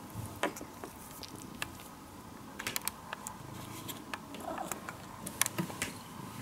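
A cat rolling about on a wooden floor, with scattered light clicks and taps and a few quick ones together about three seconds in and again near the end.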